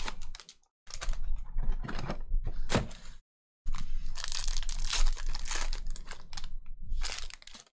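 Foil wrappers of Panini Prizm trading-card packs crinkling and tearing as the packs are handled and ripped open. The sound comes in three spells, cut by short silences: a brief one at the start, a longer one about a second in, and a long one from about four seconds in.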